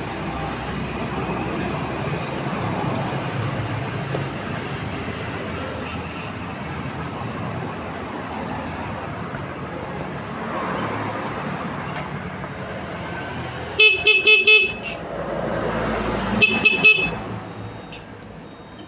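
Yamaha Mio scooter's electric horn tooted in quick short beeps: a burst of about four, then about three more two seconds later. The horn sounds again after the handlebar switch holder was cleaned.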